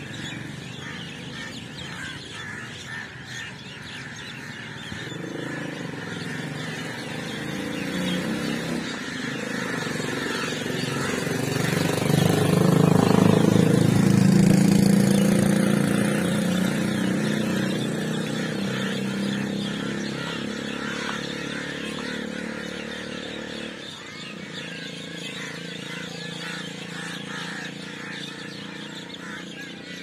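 A motor vehicle engine passing by, growing louder, loudest about halfway through, then fading away.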